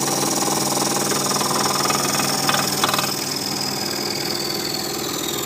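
Scroll saw running with a spiral blade cutting through a wooden tone board: a steady buzz with a high whine that sinks a little in pitch, a couple of clicks just past the middle. It cuts off suddenly near the end as the rough cut is finished.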